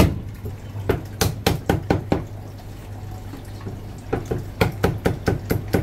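Chinese cleaver chopping cooked meat on a thick round wooden chopping block: a run of quick, sharp chops, a pause of about two seconds, then another quick run. A steady low hum runs underneath.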